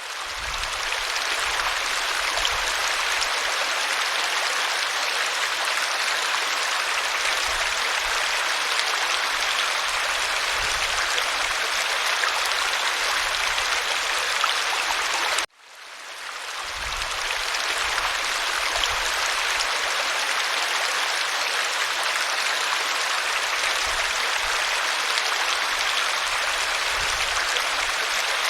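Steady, even rush of a waterfall. About halfway through it cuts out abruptly for a moment and fades back in, the seam of a looped recording.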